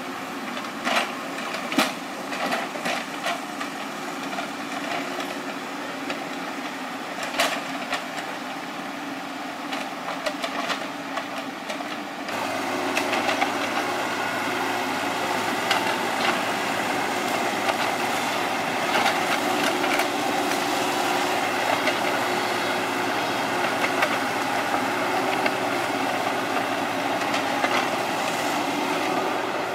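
Kubota KX91-3 mini excavator's three-cylinder diesel engine running steadily, with scattered sharp clanks and knocks in the first part. About twelve seconds in the engine steps up to a louder, fuller run and holds there.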